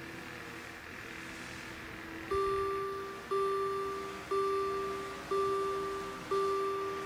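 Level crossing warning bell starting up about two seconds in and striking about once a second, each stroke a two-pitched ding that fades before the next. It signals that the crossing has been activated for an approaching train.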